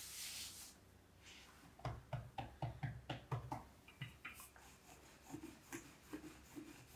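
Wooden rolling pin rolling out dough on a countertop: a quick run of soft knocks and rubbing about two seconds in, then fainter ones, after a brief rustle of hands pressing the dough.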